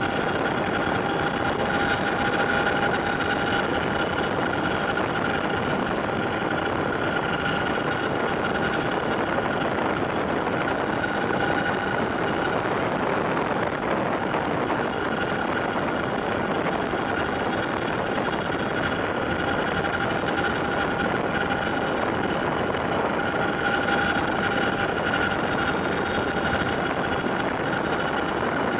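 Cabin noise inside a CH-47J Chinook helicopter in flight: a steady, loud din from its twin turboshaft engines and tandem rotors, with a steady high whine from the drive gearboxes running through it.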